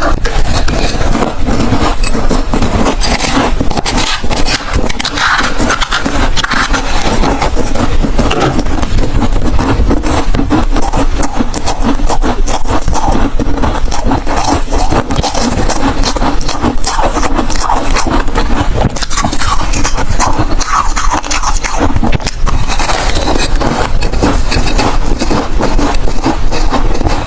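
Ice being chewed and crunched close to the microphone: a dense, continuous run of crunching and crackling with no pauses.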